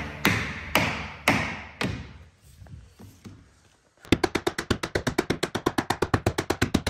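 Rubber mallet striking a metal flooring pull bar to drive a hardwood floor board tight: four ringing blows about half a second apart, then after a short lull a fast, even run of about ten lighter taps a second.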